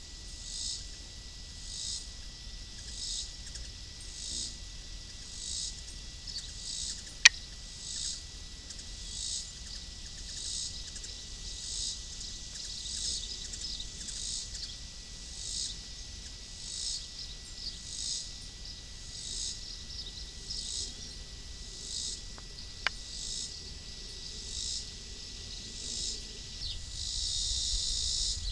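Insects chirping in a steady rhythm, about one high-pitched chirp a second, over a steady high tone. Near the end the chirps run together for a couple of seconds. Two sharp clicks, about seven seconds in and again about twenty-three seconds in, are the loudest sounds.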